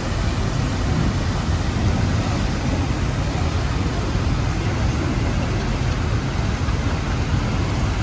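Whitewater of the Rhine Falls rushing steadily and loudly around the boat: a deep, continuous noise with no breaks.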